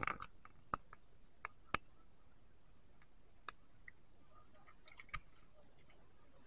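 Quiet outdoor background with a handful of scattered sharp clicks, most of them in the first two seconds and one more about five seconds in, with a few faint short chirps just before it.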